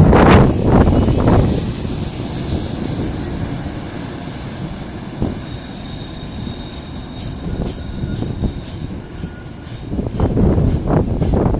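A train rolling slowly past at reduced speed in strong wind, its wheels squealing in several thin high-pitched tones from about two seconds in, followed by a run of clicks over the rail joints. Wind buffets the microphone at the start.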